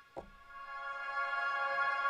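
Alchemy software synthesizer playing held chords: one chord fades out, a short low thump comes about a fifth of a second in, and a new sustained chord swells in over about a second and holds.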